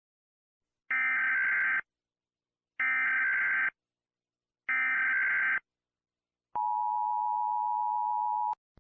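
Emergency Alert System SAME header: three evenly spaced bursts of digital data tones, each about a second long. After a short gap comes the steady two-tone EAS attention signal for about two seconds, announcing an alert.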